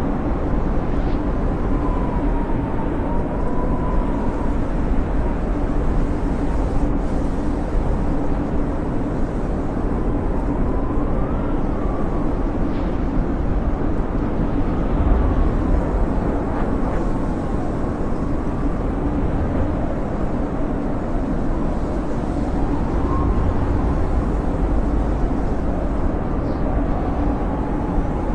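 Blizzard wind blowing steadily with a low rumble, and a thin whistling howl that slowly wavers up and down in pitch every few seconds.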